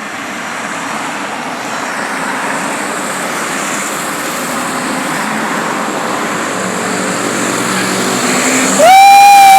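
Road traffic going past, growing louder as a vehicle's engine approaches, then about nine seconds in a very loud vehicle horn sounds one steady blast for about a second and a half.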